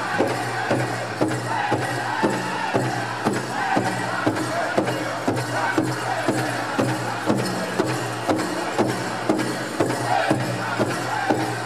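Powwow drum group singing to a steady drumbeat on a large drum, about two beats a second, with high voices carrying the song.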